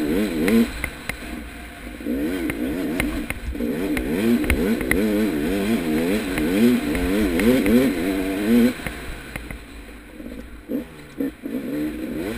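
KTM 300 XC two-stroke single-cylinder dirt bike engine revving up and down rapidly under throttle while riding, with scattered clicks. Near the end the engine eases off and runs quieter and lower before picking up again.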